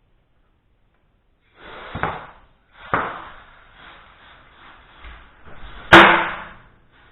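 A series of sharp knocks and clatters after a second and a half of silence: hits about two and three seconds in, and the loudest, with a short ringing tail, about six seconds in.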